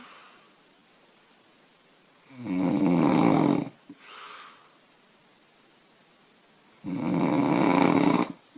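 A young woman snoring loudly in her sleep: two rasping snores about four seconds apart, each lasting about a second and a half, and each followed by a soft breath.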